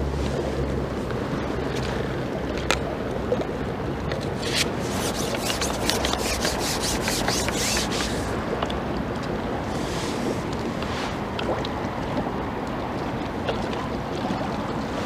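Strong wind buffeting the microphone over choppy river water, a steady rushing noise throughout. About four seconds in comes a run of crisp rapid clicks, about four a second for three or four seconds.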